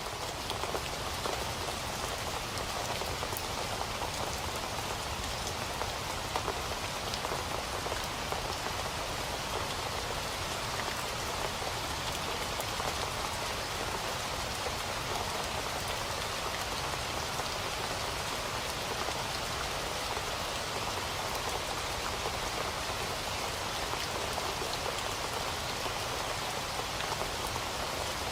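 Rain falling steadily, a constant even hiss with scattered sharper ticks of single drops striking close by.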